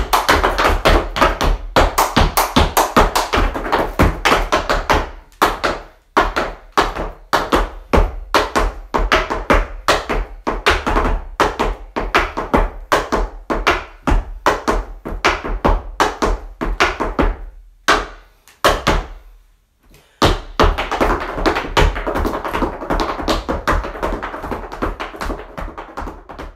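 Background music built on quick, even percussive taps, about three a second, dropping out briefly about nineteen seconds in before starting again.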